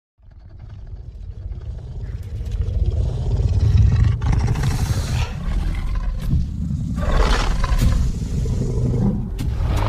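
Big-cat-like creature roar sound effect: a low, rumbling growl that swells up after a short silence, with three louder roaring surges at about five, seven and nine to ten seconds in.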